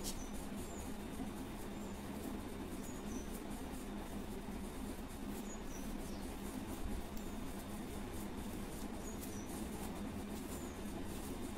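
Short, high-pitched squeaky chirps from a small animal, often in pairs, every couple of seconds, over a steady low hum and background hiss.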